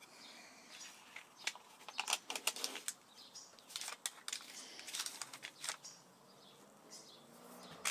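Faint, scattered knocks, scrapes and rubs of glued wooden pattern blocks being handled, set down and pressed together on a table saw's metal top.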